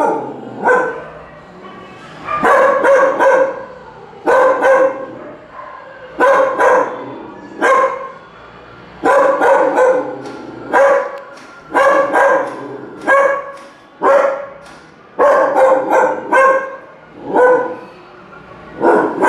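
Dog barking over and over, in single barks or quick runs of two or three, with a pause of about a second between each group.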